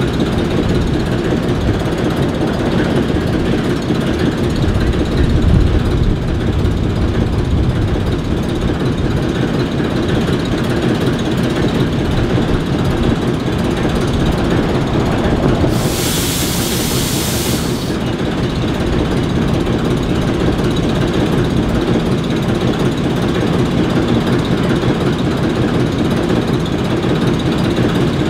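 ALCO S4 and S7 switcher locomotives' turbocharged six-cylinder 539 diesel engines idling steadily. A hiss lasting about two seconds cuts in about halfway through.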